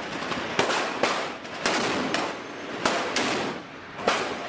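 Gunshots fired one at a time, about seven at uneven intervals of roughly half a second to a second, each sharp report trailing off in a short echo, over a steady background hiss; rounds being fired at a small boat at sea.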